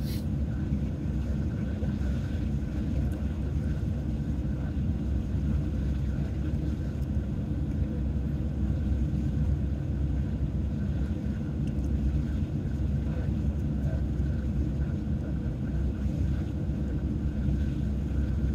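Steady low rumble of an idling vehicle heard from inside its cab, with one sharp click right at the start.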